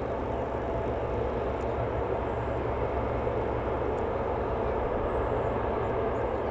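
Lockheed C-130H Hercules's Allison T56 turboprop engines running, a steady, even drone.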